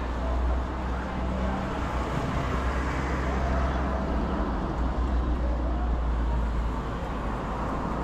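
Street traffic: passing motor vehicles with a steady low engine rumble and road noise.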